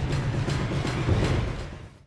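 Outro music with heavy bass and drum hits, fading out over the last half second.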